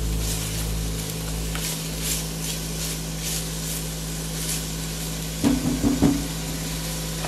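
Sliced carrots, celery and onion sizzling in olive oil in an enameled Dutch oven, stirred with a silicone spatula that scrapes and pushes the vegetables around the pot.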